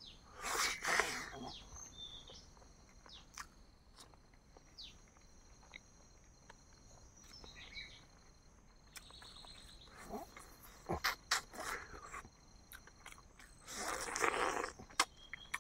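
Eating noises in bursts: three loud rustling, smacking spells near the start, around two-thirds through and near the end, with scattered clicks between, over steady high-pitched insect chirring.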